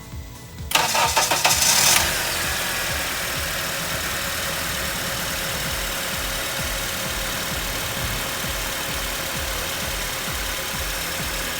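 Honda Element's 2.4-litre four-cylinder engine started after a spark plug change: the starter cranks for about a second, the engine catches, and it settles into a steady idle on the new plugs and reinstalled ignition coils.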